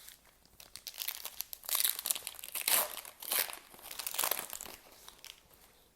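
Trading-card pack wrapper being torn open and crinkled by hand, in a series of crackling bursts that die away about five seconds in.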